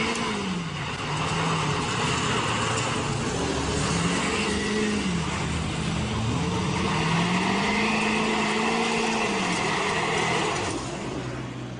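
A vehicle engine revving up and easing back three times, under a dense rushing noise. The sound drops away suddenly just before the end.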